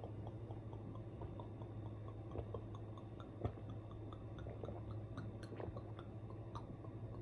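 Someone drinking wine straight from a glass bottle: a run of small wet swallowing and mouth clicks, with one sharper click about three and a half seconds in, over a low steady hum.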